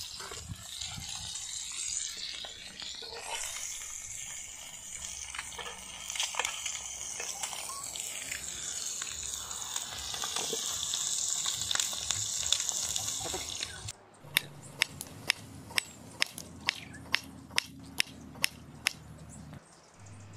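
An egg frying in oil in an iron pan, sizzling steadily. It cuts off abruptly and gives way to a knife slicing vegetables on a wooden cutting board: about thirteen sharp, even chops, roughly three a second.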